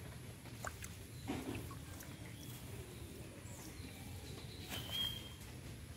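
Faint outdoor background: a low, even rumble with a few small clicks, a soft low splash-like sound about a second in, and one short high chirp about five seconds in.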